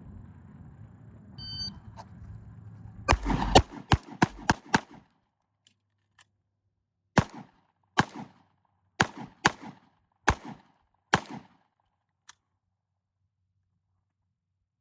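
Pistol drill: a shot-timer beep, then a quick string of six pistol shots. After a pause of about two seconds for a slide-lock reload, six more shots follow about a second apart. The last shot comes about ten seconds after the beep.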